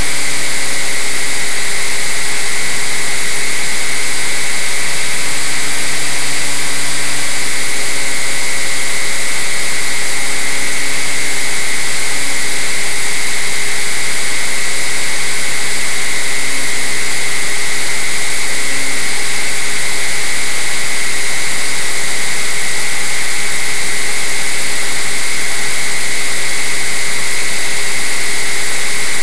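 Model airplane's motor and propeller running steadily in flight, heard close up from a camera mounted on the plane: a strong steady high whine over a hiss.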